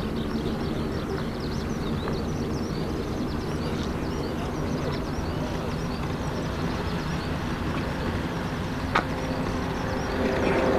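Distant airliner jet engines running steadily at low power, a droning hum over a wash of noise, swelling a little near the end; a single short click about nine seconds in.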